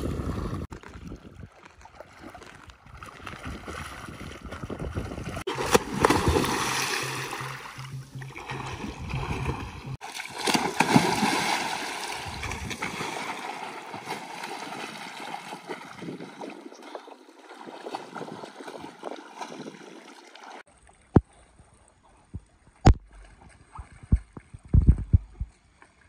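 Water splashing and churning from a swimmer doing front crawl, his arm strokes and kicks beating the surface. After the sound changes abruptly near the end, a few sharp, short splashes or knocks stand out over a quieter background.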